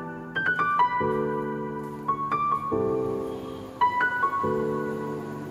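Gentle piano music: a slow melody of single ringing notes over sustained chords that change about every second and a half.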